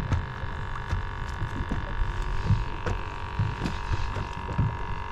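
A boat's motor running with a steady hum, under irregular low rumbling and knocks of wind and water.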